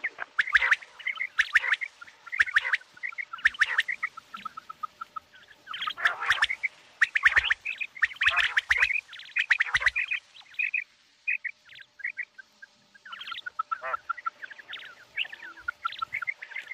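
Common quail calling: rapid runs of short, clipped notes, with louder, sharper calls coming every second or so through the first ten seconds, then softer, sparser runs of notes.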